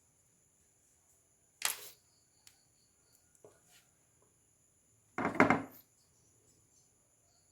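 Hand and tool handling noises on a graphics card during a thermal paste replacement. A brief rubbing scrape comes about one and a half seconds in, then a few light clicks, then a louder, longer scrape a little after five seconds.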